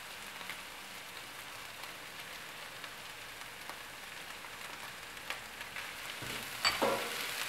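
Onion-and-fish filling frying in a pan with a steady sizzle. About six seconds in, a spatula starts stirring and scraping in the pan with a few knocks.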